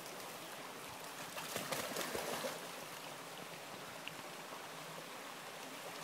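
Steady running of a shallow creek, with splashing from a dog wading through the water about two seconds in.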